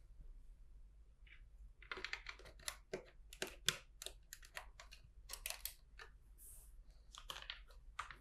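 Plastic LEGO bricks clicking and clattering as they are handled and pressed together: a faint run of light, irregular clicks starting about two seconds in.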